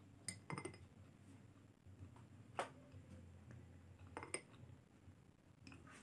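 Metal spoon clinking against a glass bowl while scooping sauce: several separate sharp clinks, the loudest near the middle.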